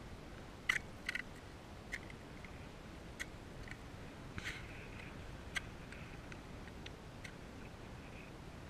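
Crampon footsteps on glacier ice and granular snow: irregular sharp clicks and crunches, about one or two a second, over a faint steady background noise.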